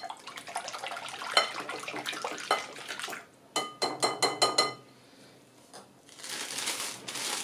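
Silicone whisk beating a thin French toast batter in a glass bowl: wet sloshing with quick clicks. About halfway comes a fast run of ringing clinks against the glass, and near the end a rustling noise.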